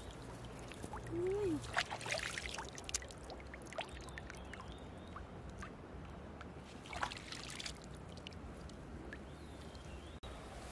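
Shallow river water splashing and dripping as a large freshwater pearl mussel is pulled out by hand, loudest about two seconds in, with a smaller splash near seven seconds. A short sliding vocal sound comes just after one second.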